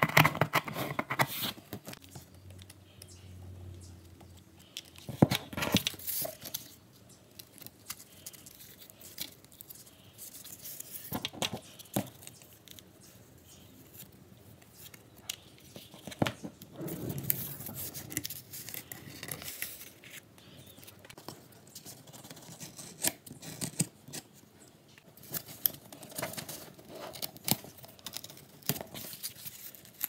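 A pen scratching over cardboard in the first second or so. Then cardboard is cut, torn and handled: irregular rustles, scrapes and clicks, with louder stretches now and then.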